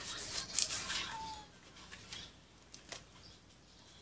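Tight rubber bands being worked off a plastic-wrapped canvas rolled around a styrofoam tube: rustling and scraping that dies away after about a second and a half, a short squeak about a second in, and a single click near three seconds.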